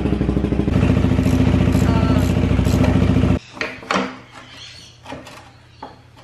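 2020 KTM 390 Adventure's single-cylinder engine idling steadily just after a cold start, run up to warm it to operating temperature before an oil change; it cuts off suddenly about three seconds in. A few light knocks follow.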